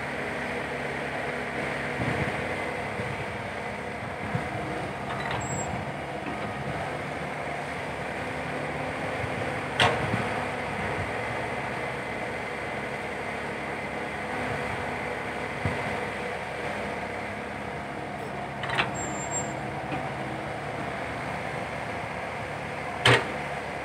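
Komatsu PC120-5 excavator's diesel engine running steadily while the machine works its arm and bucket, with three sharp clanks, about ten seconds in, about nineteen seconds in and the loudest near the end.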